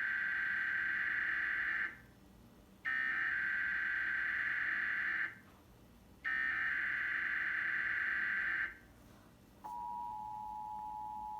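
Emergency Alert System test tones played back from a TV broadcast. First come three bursts of the SAME digital header data tones, each about two and a half seconds long with a gap of about a second between them. Then the steady two-tone EAS attention signal starts about ten seconds in.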